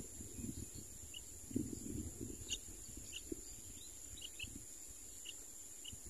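Faint short bird chirps, about a dozen scattered irregularly, over a low rumble of wind or handling on the microphone and a steady high-pitched hum.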